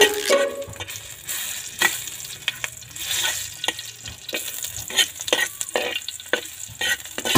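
Garlic and onion frying in hot oil in a black wok, a steady sizzle. A metal ladle scrapes and taps against the pan many times as it stirs.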